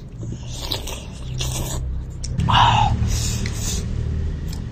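A person eating rice from a bowl with chopsticks: chewing, with chopsticks scraping the bowl as rice is shoveled into the mouth, and one louder noise about halfway through.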